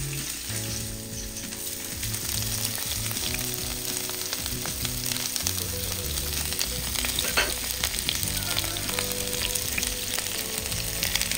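Food frying in hot oil in a pan: a steady crackling sizzle, with one sharper click a little past halfway.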